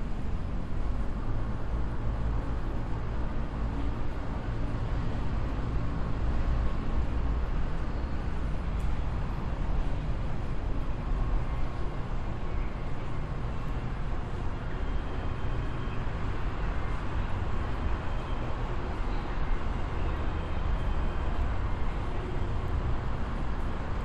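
Steady low rumble of a large building's interior ambience, with faint thin tones over it.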